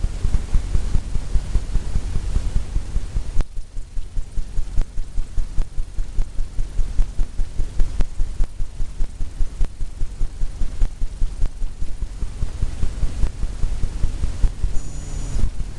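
Paintbrush working back and forth over a stretched canvas in quick rhythmic strokes, each giving a dull thump off the drum-like canvas, about three or four a second, with a short pause a few seconds in.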